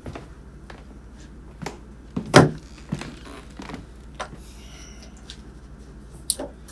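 Movement and handling noises in a small room as a man comes in and sets a paper folder down on a table: scattered light knocks and clicks, one loud thump about two and a half seconds in, and a brief rustle of paper.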